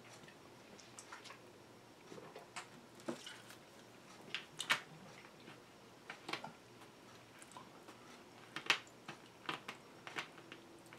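Faint handling sounds at a table: scattered small clicks and taps, the sharpest about four and a half and nine seconds in.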